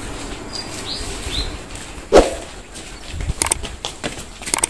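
Outdoor ambience with a few short high bird chirps, then one loud, short animal call with a falling pitch about two seconds in. A run of sharp clicks follows near the end.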